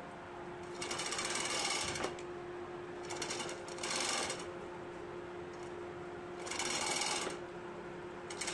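Bursts of rapid metallic rattling, four of them about a second each, over a steady low hum, as a Toyota 2KD timing belt tensioner is worked in a bench vise.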